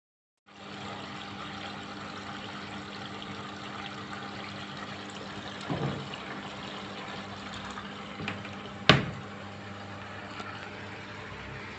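Water running steadily into a Samsung washing machine as it fills through the inlet valve, with a faint steady hum under it. The sound starts abruptly about half a second in. There is a knock about six seconds in, and a sharp click about nine seconds in is the loudest moment.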